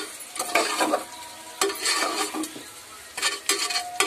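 Metal spoon stirring and scraping a frying tomato-onion masala in a metal pot, with scraping strokes about once a second over a steady sizzle.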